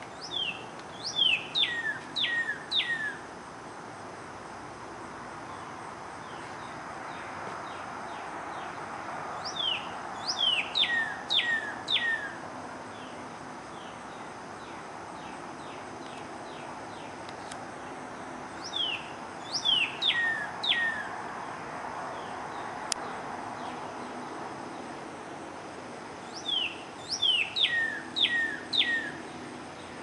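Northern cardinal singing: four phrases, each a quick run of five or six clear whistled notes that slide sharply downward, the phrases about eight or nine seconds apart.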